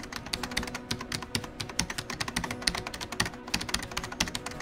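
Computer keyboard typing sound effect: a rapid, uneven run of key clicks that goes along with text being typed out on screen letter by letter.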